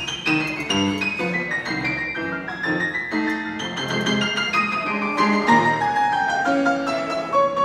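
Solo grand piano: quick runs of notes over low chords, the upper line stepping gradually downward through the passage.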